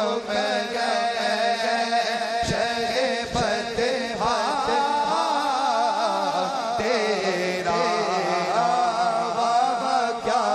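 A male naat reciter singing an Urdu naat through a microphone and PA, holding long, wavering, ornamented notes over a steady drone.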